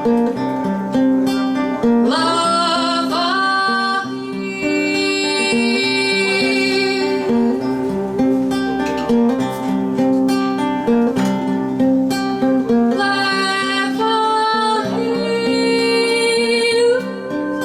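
Acoustic guitar played in a steady repeating pattern under a singer holding long, drawn-out notes of a slow Brazilian song, sung in Portuguese.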